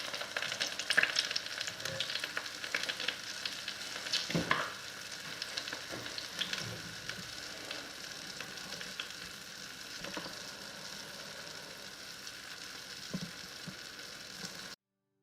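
Food frying in hot oil, a steady sizzle full of small crackles, with a few louder knocks along the way; it cuts off suddenly near the end.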